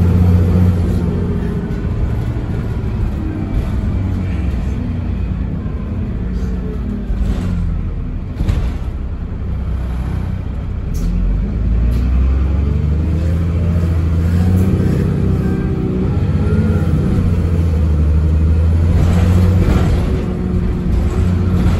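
Double-decker bus diesel engine heard on board, running down as the bus slows, then pulling away hard from about twelve seconds in: the engine note rises and falls back at each gear change of the automatic gearbox. A couple of sharp knocks near the middle.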